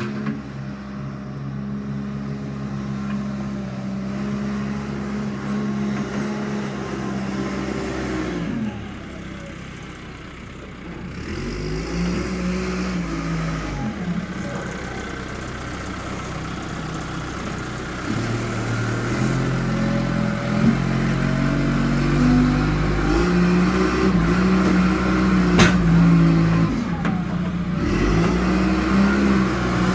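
John Deere 310 backhoe loader's diesel engine working, its pitch sagging and rising again and again as the throttle and load change. It drops to a lower, quieter run about nine seconds in, then picks back up and runs louder through the second half.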